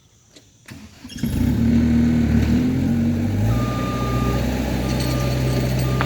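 Skid steer engine revving up about a second in and running under load as it backs up pulling the rope line on the tree top. Its reversing alarm beeps on and off from about halfway.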